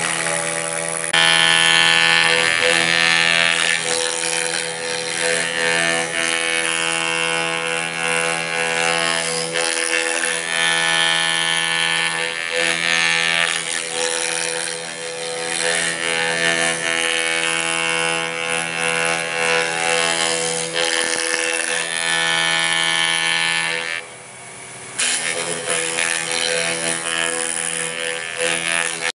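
CNC milling machine spindle running with a steady high whine as its end mill cuts into a bubinga block, the hissing cutting noise swelling and fading every few seconds as the tool moves through the wood.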